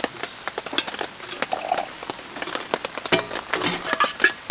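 Rain pattering steadily on a tarp, with a metal spoon clinking against a titanium mug about three seconds in and again near the end as a drink is stirred.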